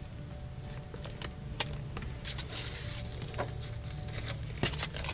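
Clear transfer tape being peeled off vinyl lettering: a few small clicks and a crackling rustle as the tape comes away, over a steady low hum.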